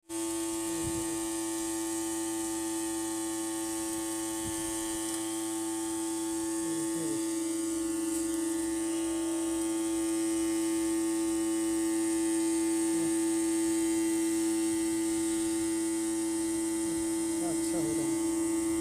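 Solar-powered 12-volt DC spray pump running at a steady speed with an even hum, with the hiss of the nozzle throwing a fine spray.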